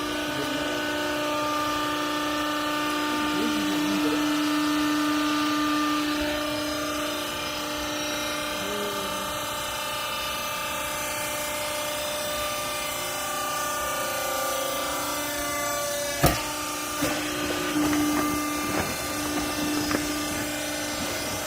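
Vertical downstroke clothing baler's hydraulic power unit running with a steady whine. A sharp bang about sixteen seconds in, then a few smaller knocks.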